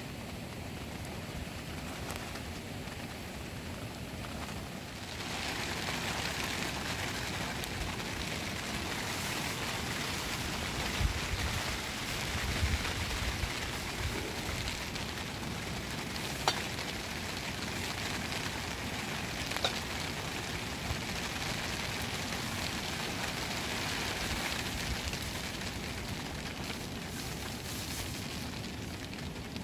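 Steady rain falling, growing heavier about five seconds in, with a few sharp clicks.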